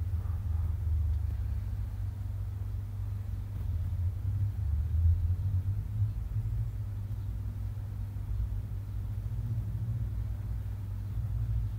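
Steady low rumble with no other sounds.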